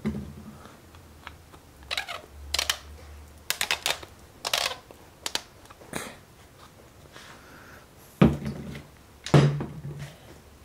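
Sharp clicks and light knocks of 3D-printed plastic projectiles being handled and set down on a plastic folding table, in irregular bunches with pauses between them.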